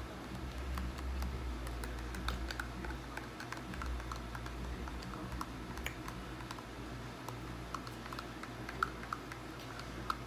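Spoon scraping and tapping inside a small cup of cheese sauce, giving a run of irregular small clicks over a low steady hum.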